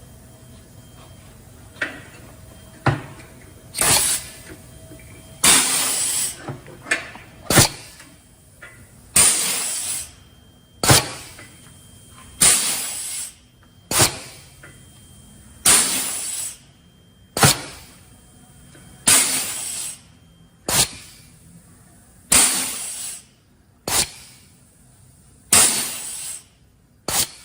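Air brake chamber being cycled on a rebuilt Meritor/Volvo axial air disc brake caliper. Each cycle, about every three seconds, is a short burst of compressed-air hiss and then a sharp click, as the chamber is pressurised and released to work the caliper lever.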